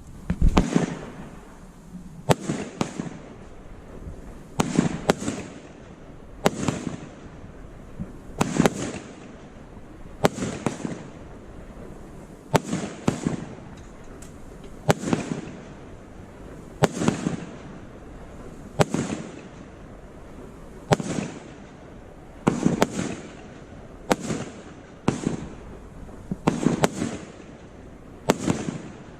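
A 1.3G 'Ammo Crate' firework cake firing shot after shot at a steady pace, about one every two seconds. Each shot is a sharp report followed by a short noisy burst.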